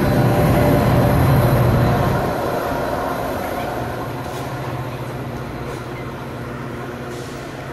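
Train rolling past on the tracks, loud for the first two seconds and then fading as it moves away, leaving a steady low hum.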